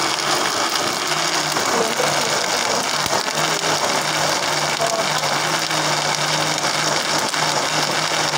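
Electric countertop blender running at full speed, grinding a thick peanut sauce for sambal pecel. It is a loud, steady whir with a low hum underneath.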